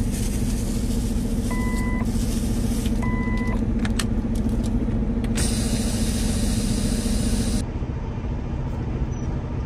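Semi-truck diesel engine droning steadily, heard inside the cab. Two short electronic beeps sound in the first few seconds, then a hiss lasts about two seconds, and the engine drone drops as it ends.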